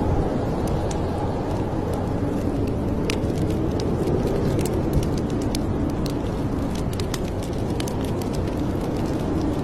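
Fireplace crackling: scattered sharp pops and snaps over a steady, low-heavy rumble of the fire.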